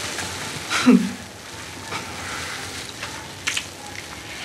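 Bubble-bath foam crackling and fizzing with small movements of bath water, and a few short, sharper sounds, the loudest about a second in.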